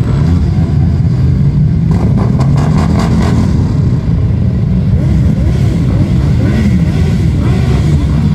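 Motorcycle engine running under way, its pitch rising and falling with the throttle.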